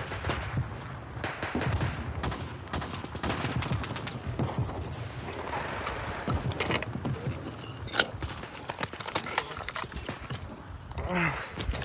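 Gunfire: a rapid, irregular fusillade of shots and short bursts, with one sharp, louder crack about eight seconds in.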